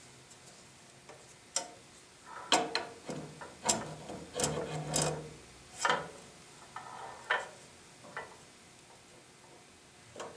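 Metal bandsaw guide parts being handled and fitted onto the guide post: irregular sharp clicks and clinks of metal on metal, busiest in the middle.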